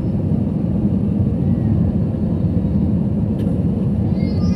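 Steady low rumble of airliner cabin noise, the jet engines and rushing air heard from a window seat over the wing during the descent to land.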